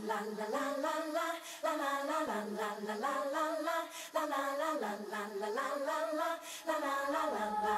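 Intro music of unaccompanied voices singing a melody in short phrases.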